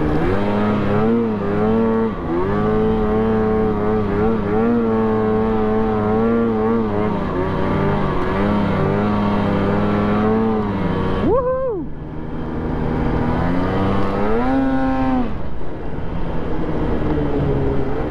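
Polaris SKS 146 snowmobile engine running under way, its pitch rising and falling with the throttle. Just past halfway it revs up sharply for a moment and drops off. After a short lull it climbs again and settles back.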